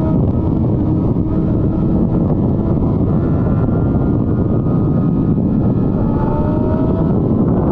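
Motorcycle engine running under a dense, steady rumble; its pitch rises briefly near the end as it revs.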